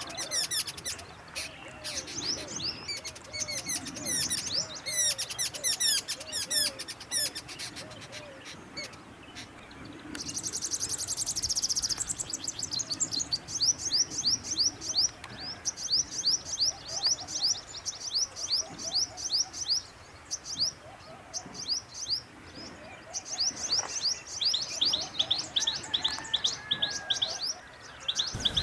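Small birds chirping and twittering in quick, high series of notes, with a fast, buzzy trill about a third of the way through.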